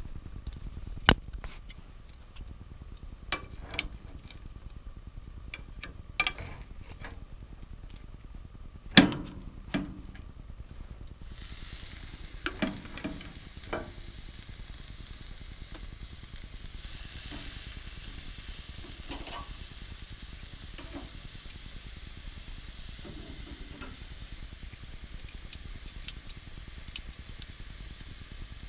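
Seasoned pork chops sizzling on a hot gas grill's grate as they are laid down with metal tongs, with scattered sharp clicks and knocks of tongs on the grate, two of them loud. A steady sizzling hiss sets in about a third of the way through and carries on.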